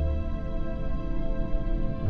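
Ambient background music: a held chord of steady tones over a deep bass note that slowly fades.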